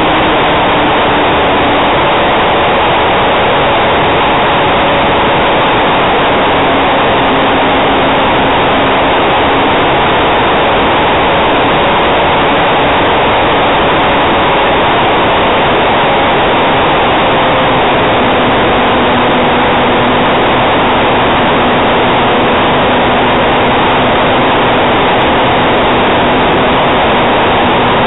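Loud, steady rush of airflow on the onboard microphone of a radio-controlled Hype Cessna 400 Corvalis model plane in flight. The motor and propeller hum faintly underneath, their pitch shifting slightly now and then with throttle.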